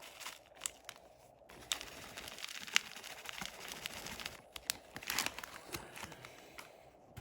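Crinkling and rustling from handling ingredients while a spiced chicken marinade is put together, with scattered small clicks and a couple of brief louder scrapes.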